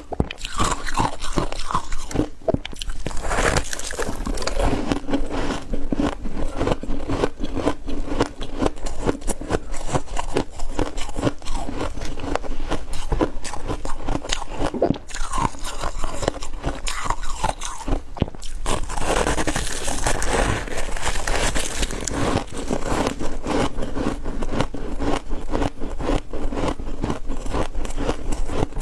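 Ice and freezer frost being bitten and chewed, a dense run of crisp crunches and crackles.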